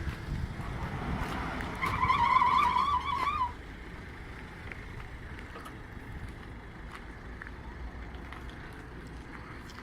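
Low rumble of a utility vehicle. About two seconds in, a wavering high-pitched tone sounds for roughly a second and a half, then cuts off.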